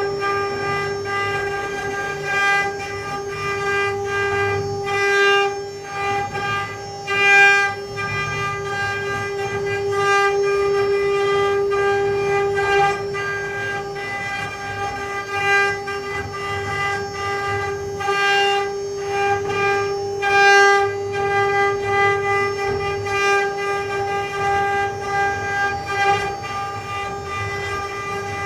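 Mini CNC router's spindle whining at one steady pitch while it carves wood, with a louder rasp of cutting about every two and a half seconds.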